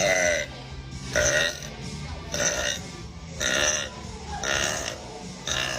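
A woman burping repeatedly: about six short burps roughly a second apart, over quiet background music.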